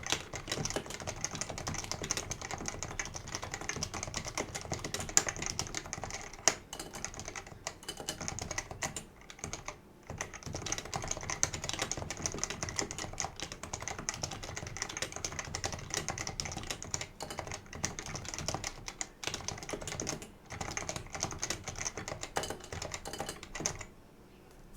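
Typing on a Leopold FC660C keyboard with unlubricated Topre switches: a fast, continuous stream of keystrokes. There is a brief lull about nine seconds in, and the typing stops just before the end.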